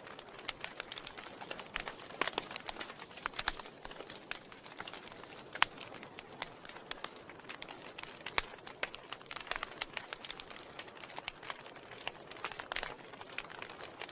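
Wood fire burning in a fireplace, crackling with frequent irregular sharp pops over a soft steady hiss, a few of them louder than the rest.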